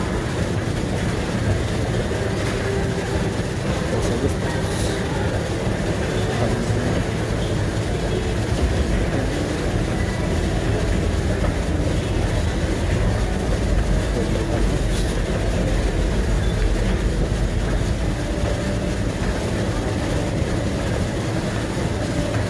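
Treadmill running steadily under a walker: a continuous low rumble from its motor and moving belt.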